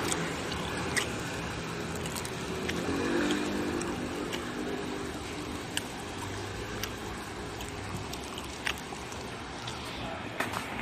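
A motor running steadily under outdoor street noise, with scattered light clicks.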